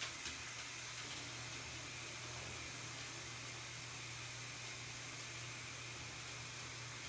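Steady hiss of water spraying during a pet bird's bath, with a low steady hum underneath.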